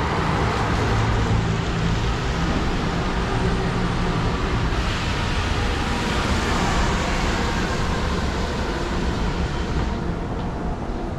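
City street traffic: a steady low rumble of vehicle engines, with a hiss of tyres on wet road swelling for several seconds in the middle.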